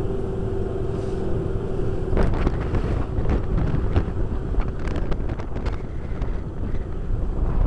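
Wind buffeting the microphone aboard a small electric boat under way, a heavy low rumble. A steady hum runs underneath and stops about two seconds in, after which irregular sharp clicks and slaps come through.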